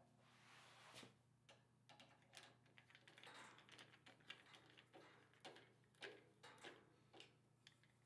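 Faint, irregular clicks, taps and rustling of a 1U horizontal finger-duct cable management bracket being handled against a server rack's mounting rails and screwed into place.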